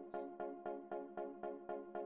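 Background music: short, bright electronic notes repeating about four times a second at a steady beat.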